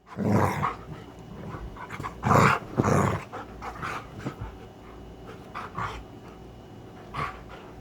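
Dogs play-fighting, growling and vocalising in short rough outbursts, loudest in the first few seconds, with quieter ones after.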